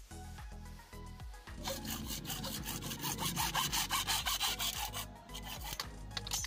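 Hacksaw blade sawing through a white plastic water pipe in rapid back-and-forth strokes, starting about a second and a half in and finishing about five seconds in.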